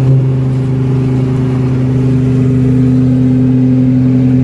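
GT-R's engine running at a steady speed, heard from inside the car: a constant, unchanging drone with no revving up or down.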